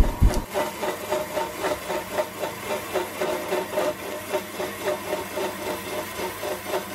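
Compressor opener's cutting blade grinding through the welded collar of a sealed reciprocating compressor's steel shell as the compressor slowly turns, water coolant falling on the blade. It makes a steady rubbing with an even pulse of about four beats a second, after a short low knock at the very start.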